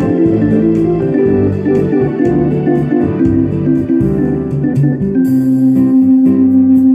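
Electronic keyboard playing a melody in a guitar-like plucked voice over a bass line and automatic drum rhythm. About five seconds in it settles on one long held note, starting with a cymbal crash.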